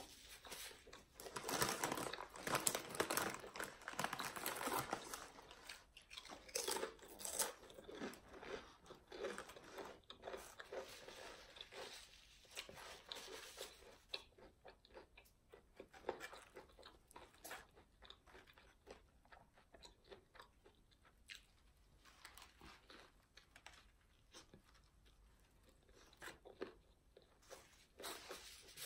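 Close-miked eating: a person crunching and chewing food, with many quick crunchy bites, busiest in the first half and settling into slower, quieter chewing later on.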